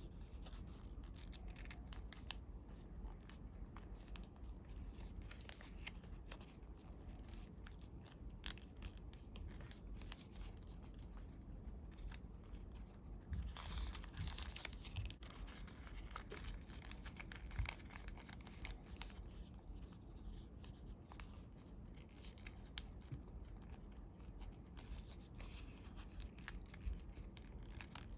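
Hands folding and creasing a sheet of colored paper, with soft rubbing, small crackles and crisp paper rustles. A louder rustle comes about halfway through.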